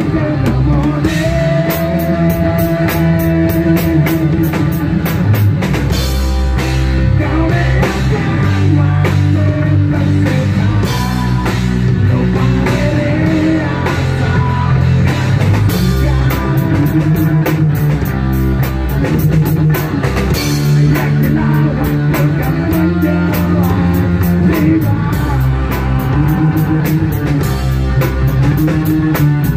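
Rock band playing live: a drum kit beating a steady, fast rhythm under electric guitars and bass guitar.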